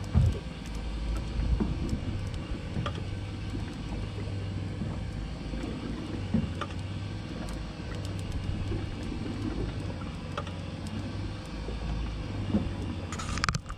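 Kristal electric deep-drop reel winding line in under load, a steady low motor hum with a few small knocks.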